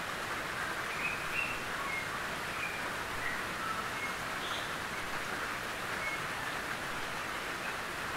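Gentle rain falling steadily on a tin roof, an even patter, with a few faint, short, high-pitched notes scattered through it.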